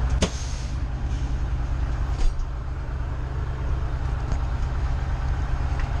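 Detroit Diesel 6V92TA two-stroke V6 diesel of a Gillig Phantom bus running steadily, heard from inside the bus. A sharp click sounds just after the start and another about two seconds in.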